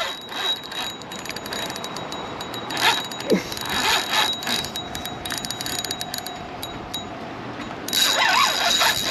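Spinning reel being cranked while fighting a hooked fish: a rapid mechanical clicking and whirring from the reel. It gets louder and busier near the end.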